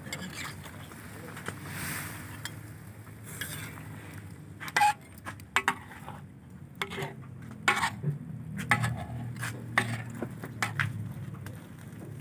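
Metal cooking utensil clinking and knocking against a large metal wok of boiling seafood: a run of sharp, irregular clinks from about four seconds in until near the end, over a steady low background.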